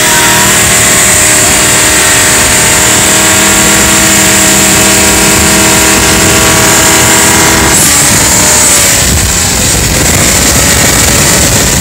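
Jet boat engine at high throttle pulling a water tube, its note holding steady and loud over the rush of wind and spray. About eight seconds in the engine note eases off and breaks up, leaving mostly the rush of wind and water.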